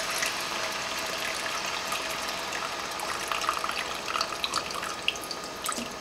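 Chicken broth pouring from a glass canning jar into a skillet of roux: a steady splash of liquid, with a few light knocks in the second half as the solids are held back in the jar.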